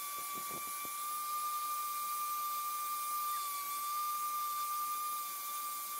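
Electric random orbital sander running with a steady high whine while sanding a birch crotch slab with 80-grit paper.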